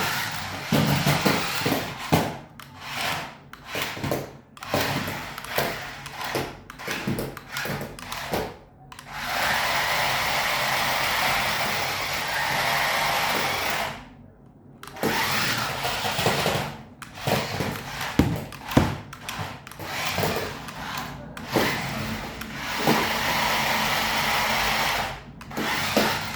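Small electric motor of a toy RC car whirring in short on-off bursts as it is throttled. Twice it runs steadily for a few seconds: once about a third of the way in, and again near the end.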